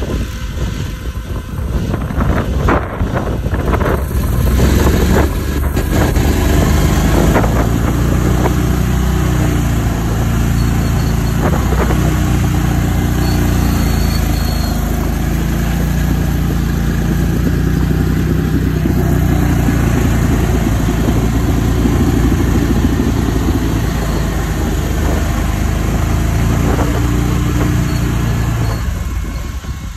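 Engine of a tracked Argo XTV amphibious ATV running under load as it drives through swamp mud, getting louder about four seconds in, then holding steady and easing off just before the end.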